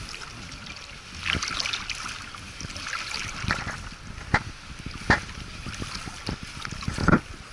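Water lapping at a plastic sit-on-top kayak, with wind on the microphone. About six uneven knocks and clunks sound on the hull, the loudest near the end.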